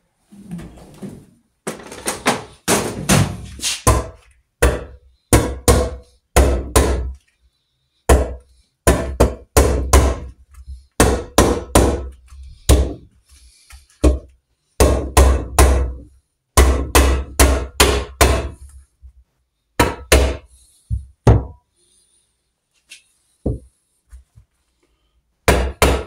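Soft-faced mallet knocking the aluminium crankcase halves of a Norton Commando 850 engine together over the crankshaft. The dull knocks come about three a second in runs with short pauses, and thin out to a few single knocks near the end.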